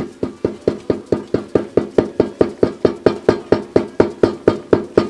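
A rapid, even series of knocks, about four to five a second, each with a short ringing tone, starting suddenly.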